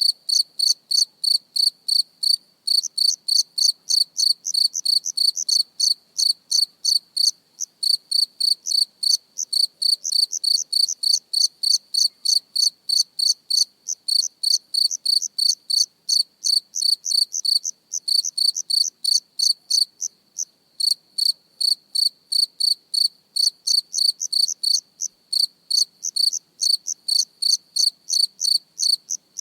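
A cricket chirping close up: a steady run of high-pitched chirps, about three or four a second, with a few short pauses.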